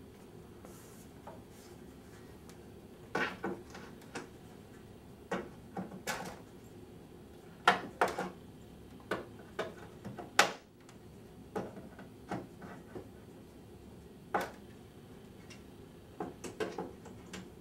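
Scattered knocks and clicks, about a dozen, from hand work with a small tool on a wooden window frame.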